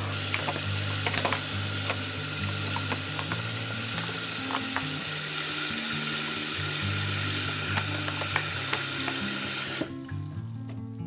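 Kitchen tap running hard into a plastic basin of water, a steady splashing hiss that cuts off suddenly about ten seconds in when the tap is shut.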